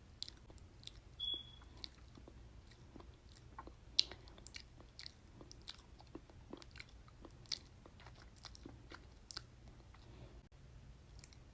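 Mouth noises made for ASMR: irregular sharp clicks and smacks of lips and tongue, with a brief high squeak about a second in and the sharpest click about four seconds in.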